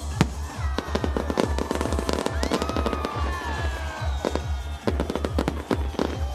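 Fireworks bursting and crackling in quick succession over loud music with a steady, fast pounding bass beat.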